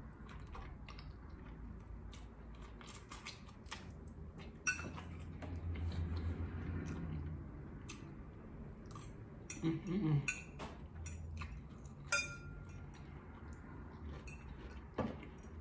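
Metal fork clinking and scraping against a ceramic bowl as pasta is eaten, in scattered sharp clicks, with chewing.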